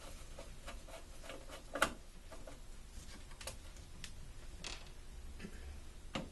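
Scattered light clicks and taps of hands handling TV parts and tools during disassembly, with a sharper click about two seconds in and another near the end.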